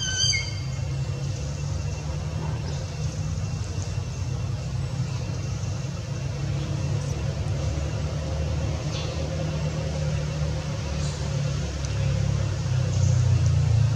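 Steady low rumble of background noise, with a brief high-pitched squeak just after the start and a few faint short chirps later.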